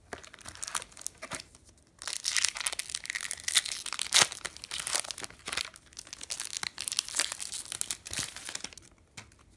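Foil trading-card booster pack wrapper crinkling and tearing as it is pulled open by hand: a few scattered crackles at first, then a dense run of crinkling from about two seconds in until near the end.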